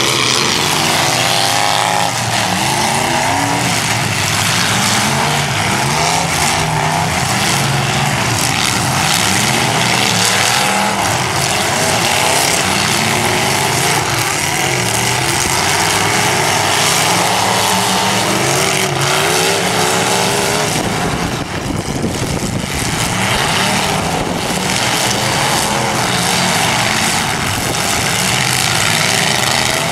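Several demolition derby cars' engines revving hard, their pitch repeatedly rising and falling as the cars accelerate and back off, over a dense din with scattered short bangs.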